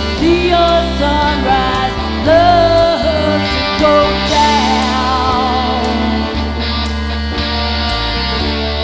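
Live rock band with electric guitar, bass and violin playing a slow song, with a woman singing long, wavering notes over a steady bass.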